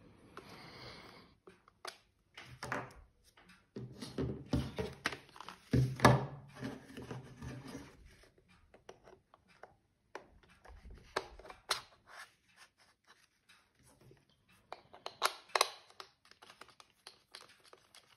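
Hard plastic parts of NV8300 night vision binoculars and their head-mount bracket being handled and fitted together: a run of clicks, knocks and scrapes. They are busiest about four to six seconds in, with the loudest knock about six seconds in, and pick up again about fifteen seconds in.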